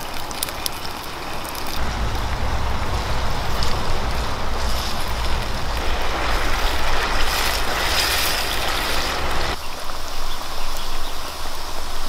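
A wood fire crackling, followed by pieces of eel on bamboo skewers sizzling and bubbling in hot oil in a pot. A low rumble runs under the middle of it.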